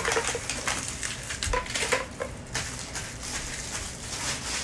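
Plastic wrappers crinkling and rustling as toys are unwrapped, with irregular crackles and light taps of small plastic pieces.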